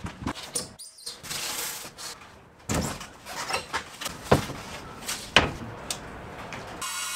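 Large plywood sheets being handled on wooden sawhorses: repeated knocks and thuds of board on board, with a scraping slide as one sheet is pushed across another. Near the end the sound changes abruptly to a steady hum.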